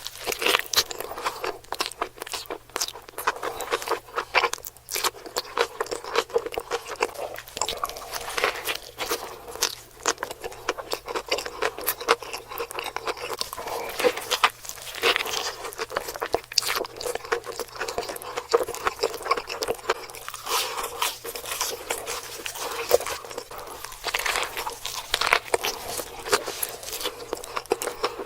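Close-miked eating of saucy burgers: biting and chewing, with dense crunchy, wet clicks throughout.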